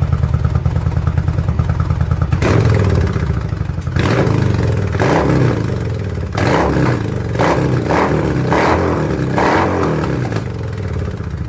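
Yamaha XVS 1100 V-Star's air-cooled V-twin idling with a steady beat, then revved in a string of short throttle blips that each fall back, settling to idle near the end.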